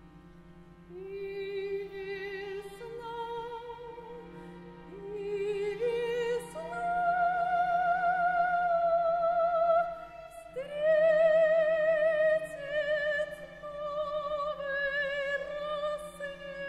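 Operatic soprano singing slow, long-held notes with wide vibrato over a quiet, sustained low chord from the accompaniment. The voice enters about a second in, climbs phrase by phrase, breaks off briefly past the middle and comes back on a higher note.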